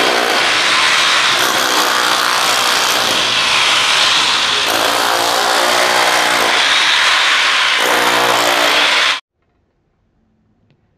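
Electric rotary hammer breaking into a concrete floor, running continuously with its pitch shifting as the bit bites in. It cuts off suddenly about nine seconds in.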